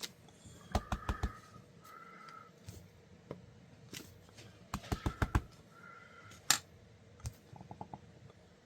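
Rubber stamp on a stamp block being tapped and pressed against an ink pad and paper: quick clusters of light taps, with a few short, faint squeaks between them.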